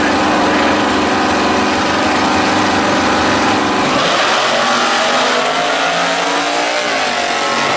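Two drag-racing muscle cars' engines held at steady revs on the start line, then launching about four seconds in, the engine note rising as they accelerate away down the strip.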